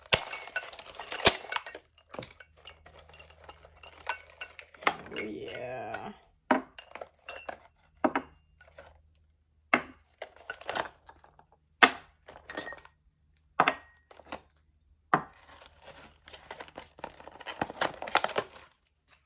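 Small metal pieces clinking and knocking against each other and onto a hard surface: a dozen or so separate sharp clinks at uneven intervals, a few ringing briefly.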